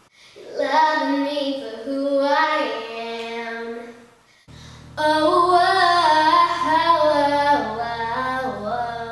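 A young girl's solo soprano voice singing unaccompanied low in her range, with notes down around B-flat 3, in two phrases with a short break about four seconds in. A steady low hum runs under the second phrase.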